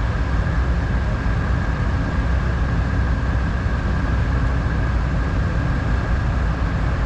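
A tugboat's twin diesel engines running steadily under load during close maneuvering, a dense low rumble with a thin steady high whine above it.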